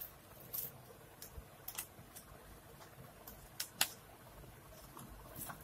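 Small black cardboard folder handled and unfolded by hand: scattered soft clicks, taps and rustles of card on card, with one sharper click about four seconds in.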